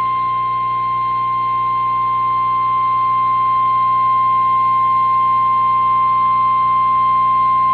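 Emergency Alert System warning tone: a single loud, steady tone near 1 kHz, the 1050 Hz weather-radio alert tone, held unbroken. It signals that a National Weather Service warning, here a severe thunderstorm warning, is about to be read.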